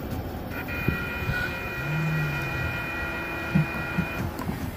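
A car driving over a railroad grade crossing, its tyres thumping over the rails about three and a half seconds in, over a low rumble. A steady chord-like tone sounds for about three and a half seconds and stops shortly before the end.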